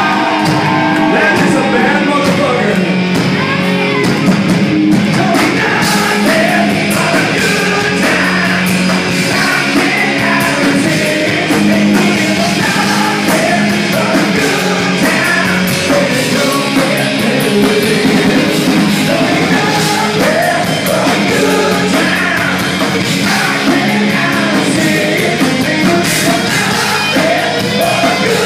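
Live rock band playing loudly, a singer's voice over electric guitar and drums.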